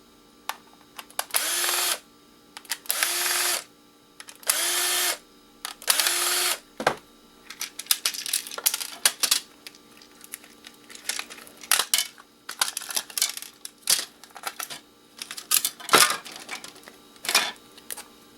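Cordless drill-driver run in four short bursts of under a second each, its motor pitch rising as it spins up, driving out screws to open an electronics casing. After that comes a run of irregular clicks and knocks of plastic and metal parts being pried and pulled apart.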